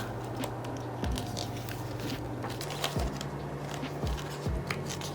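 Photobook pages being turned and handled: light paper rustles and clicks with a few soft thumps.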